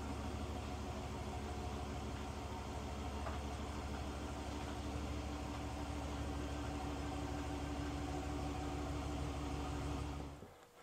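Pickup truck engine idling steadily, then stopping near the end.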